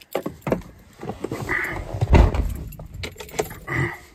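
Keys jangling and rustling handling noise from a phone held in the hand, with scattered clicks and a dull thump about two seconds in.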